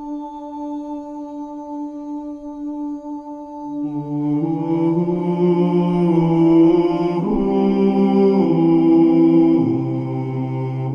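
Slow wordless choral singing on long held notes. Lower voices come in about four seconds in, and the chord changes a few times after that.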